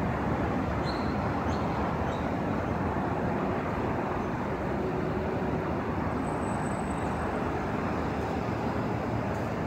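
Steady city road-traffic noise: a continuous rumble and hiss of passing vehicles, with no train going by.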